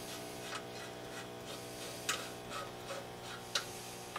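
Steady hum and hash from the Swan 350 tube transceiver's speaker, its receiver running with no antenna, broken by a few short scrapes and clicks as an antenna connector is screwed on.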